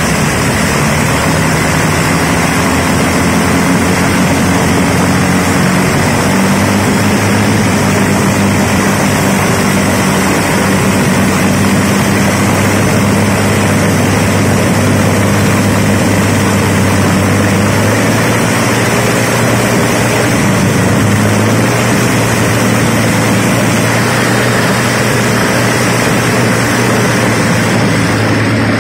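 Restored Fiat AS.6 V-24 aero engine running steadily on a test stand, its spinning propellers and flaming open exhaust stacks giving a loud, continuous drone. The engine note steps up slightly a couple of times.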